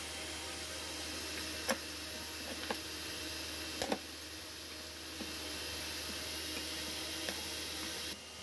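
A few light metallic clicks and taps as a screwdriver and electric horn parts are handled on a metal workbench, the clearest about two seconds in and about four seconds in, over a steady hiss and low hum.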